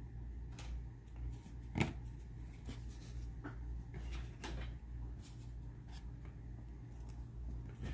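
A stack of football trading cards being handled and thumbed through, with faint scattered clicks and rustles and one sharper tap about two seconds in, over a steady low hum.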